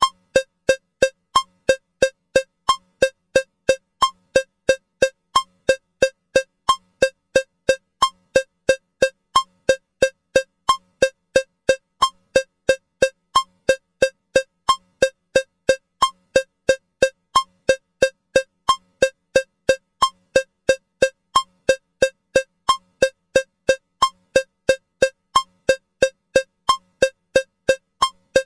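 Metronome cowbell click sounding at a steady 180 beats per minute, three short metallic strokes a second in 4/4 time.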